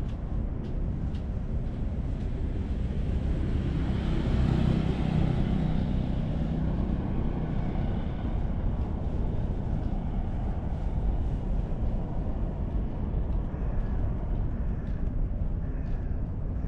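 Low rumble of distant motor traffic, swelling between about four and seven seconds in as a vehicle passes.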